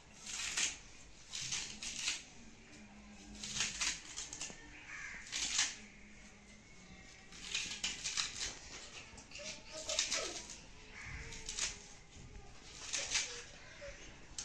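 Knife cutting through a bunch of fresh coriander held in the hand: short, crisp slicing strokes in runs of several, repeating every second or two.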